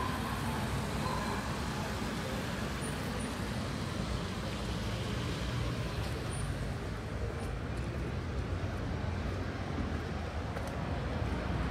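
Steady city traffic noise: the low rumble of passing road vehicles.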